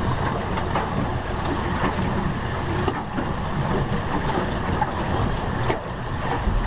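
Wind rushing over the camera microphone aboard a sailing yacht: a steady low rumbling rush with a few sharp clicks.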